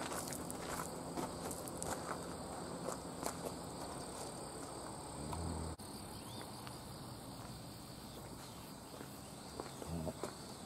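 Insects trilling steadily in two unbroken high tones, with scattered footsteps on the ground.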